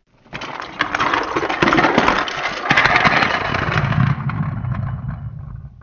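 Die-cast toy cars and a toy train rolling down a plastic ramp track and out across a laminate floor: a continuous rattling rumble full of small clicks that starts suddenly and fades away near the end as they roll to a stop.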